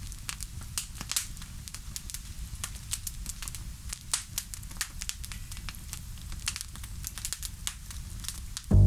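Wood bonfire crackling, with sharp irregular pops over a steady low rumble.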